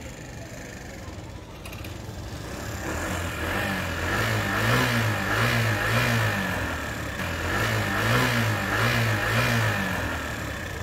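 Daelim Couple 50cc scooter engine running and revved in about six short throttle blips, each rising and falling in pitch. The rear wheel does not turn: the drive belt has broken.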